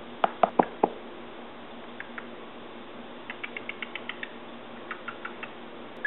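Cockatiel making short clicking sounds: four sharp clicks in the first second, then a quick run of about ten soft ticks a little after the middle, and a few more near the end.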